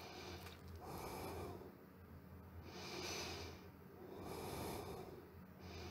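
A person breathing softly close to the microphone, about two slow breaths in and out.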